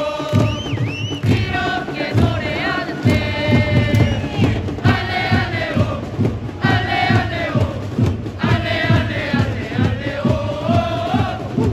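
A football supporters' section singing a chant in unison to a steady bass drum beat.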